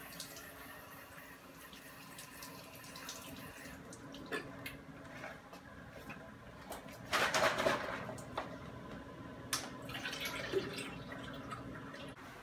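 Urine from a catheter night bag draining through its tube into a toilet bowl, liquid trickling into the water, with scattered handling clicks and a louder burst of noise about seven seconds in over a steady low hum.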